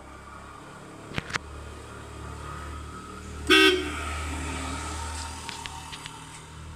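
A motor vehicle's engine rumbling steadily as it passes, swelling and then fading, with one short, loud horn toot about three and a half seconds in. Two light clicks come about a second in.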